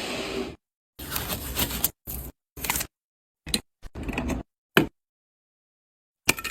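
Quick-cut snippets of computer parts being handled and fitted by hand: clicks, scrapes and rustles, each snippet cut off abruptly with dead silence between.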